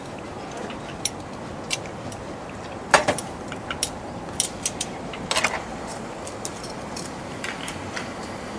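Scattered light clicks and clinks of metal tongs and chopsticks against bowls and the grill, loudest twice around the middle, over a steady background noise.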